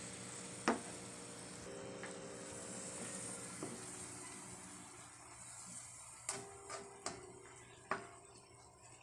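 Chicken simmering and sizzling in wine and water in a wok while a spatula stirs it. A sharp knock of the spatula against the pan comes near the start, and a few more come in the last three seconds.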